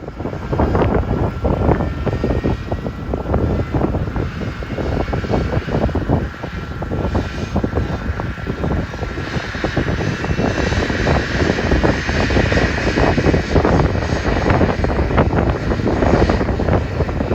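Boeing 737 jet engines running: a loud, steady rushing noise with a thin, steady whine held on top.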